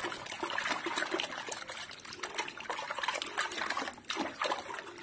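Soapy water in a basin sloshing and splashing irregularly as a hand swishes small plastic toys through the foam to wash them.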